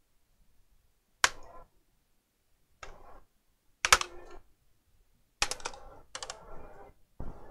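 Plastic snap clips of an Asus laptop's case popping loose as the case is pried apart: a series of sharp plastic snaps at irregular intervals, each with a brief ring, coming closer together near the end.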